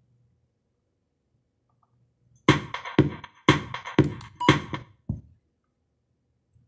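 Music with a strong beat, about two beats a second, playing from a car stereo head unit reading an MP3 from a USB flash drive. It starts about two and a half seconds in and cuts off after about three seconds as the unit skips to the next track.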